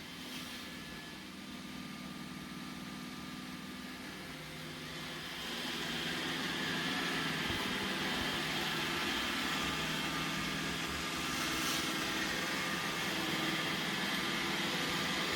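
iRobot Roomba 960 robot vacuum running, a steady motor whine over brush and suction noise that grows louder about five seconds in and then holds.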